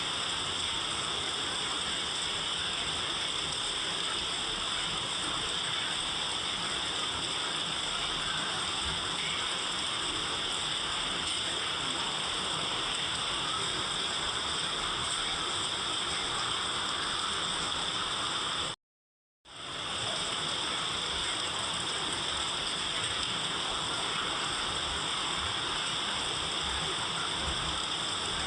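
Steady, even rain noise. It cuts out completely for about half a second roughly two-thirds of the way through, then resumes unchanged.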